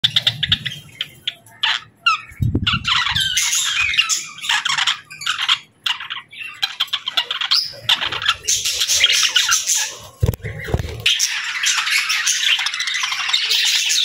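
Budgerigars chirping and squawking in quick, short calls, which run together into a dense, continuous chatter over the last few seconds.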